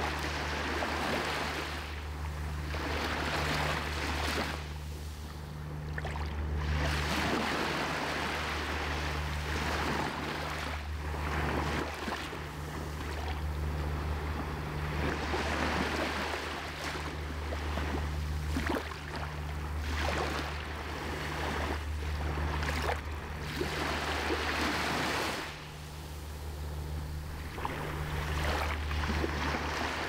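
Small waves breaking and washing up onto a sandy beach, the surf swelling and fading every few seconds, over a steady low hum.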